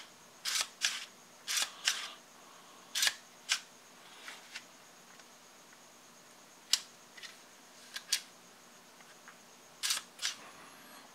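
Sharp plastic-and-metal clicks and clacks of an airsoft Hi-Capa pistol's slide and small parts being worked by hand. Several come in quick pairs through the first few seconds, then single clicks follow at longer gaps.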